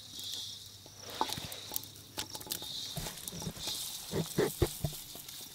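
Dry-roasted whole spices, mostly coriander seeds, pattering and clicking as they are tipped from an iron wok into a granite stone mortar, with a few dull knocks about three to five seconds in.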